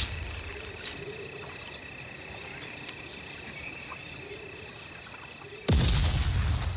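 Insects chirping in a fast, even pulse, with a steady high tone beneath. Near the end, a sudden deep boom that fades out over about a second.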